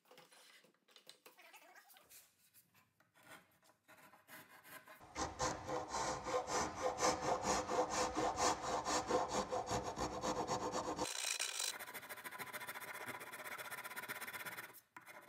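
Hand file rasping across the end of a wooden stair tread, filing the back-cut edge down to a scribed line for a tight fit against the skirt board. A few faint scrapes at first, then quick steady strokes from about five seconds in, turning softer and thinner about eleven seconds in.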